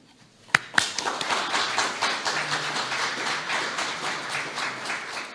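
Audience applauding. A single sharp clap comes about half a second in, and the full applause starts just after it.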